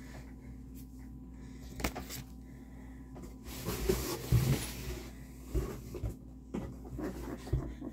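Cardboard packaging being handled: a sharp click about two seconds in, rustling around four seconds, then several dull knocks as the box is moved about.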